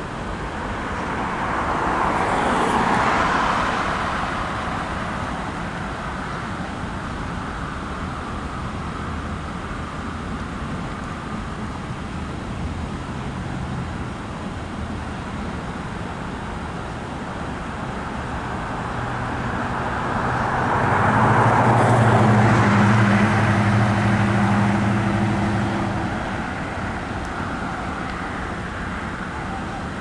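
Freight train cars rolling by steadily. Two road vehicles pass close in front, their tyre and engine noise swelling and fading about three seconds in and again around twenty-two seconds in; the second has a steady low engine hum.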